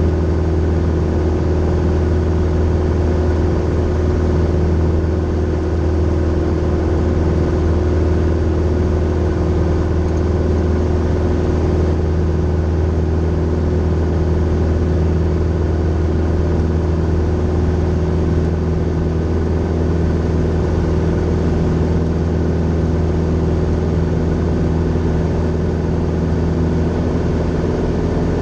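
Grumman Tiger's four-cylinder Lycoming O-360 engine and propeller running steadily in flight, heard from inside the cabin as an even, low drone.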